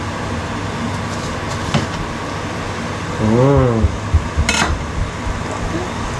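Kitchen knife cutting an onion on a wooden chopping board, with a few sharp knocks and clinks, over a steady background hiss. A short voice sound that rises and falls in pitch comes about halfway through.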